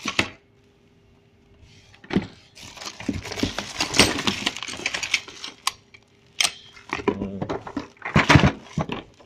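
Plastic-wrapped metal hand tools being handled in a box: the bags crinkle and rustle while the tools clink and clatter in quick irregular clicks, starting about two seconds in after a brief quiet.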